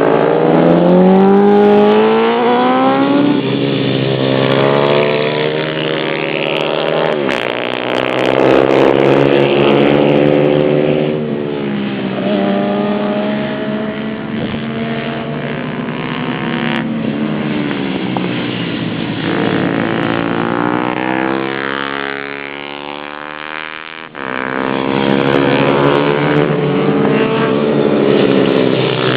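Pit bikes with YX 140 and 150 single-cylinder four-stroke engines riding and revving hard. The engine note climbs and drops repeatedly through the gear changes. The sound fades about two-thirds of the way through, then swells back up suddenly.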